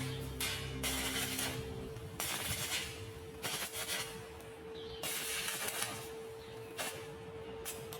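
Irregular bursts of electric arc welding hiss and crackle, each lasting under a second, over soft background music with a long held note.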